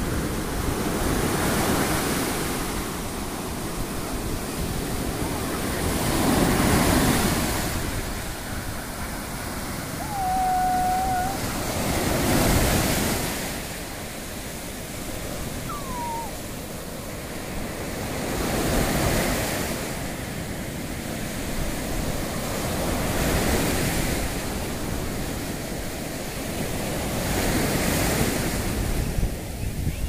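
Surf on a sandy beach: waves breaking and washing up over the sand, the rush swelling and fading every few seconds, with some wind buffeting the microphone.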